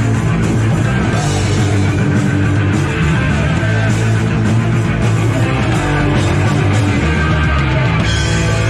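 Punk rock band playing live, loud and without a break.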